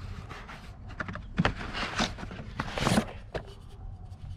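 Handling noises: a string of irregular knocks, clicks and scrapes, loudest about two and three seconds in.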